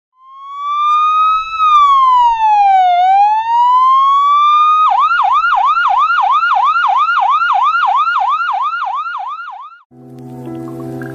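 Electronic emergency-vehicle siren sound effect: a slow wail that rises, falls and rises again, then switches to a fast yelp of about three to four sweeps a second before cutting off. Music starts near the end.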